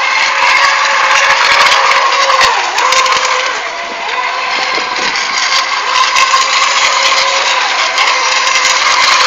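FSR-E class electric RC racing boats running on the water: a steady motor whine over a hiss of spray, dipping briefly about four seconds in.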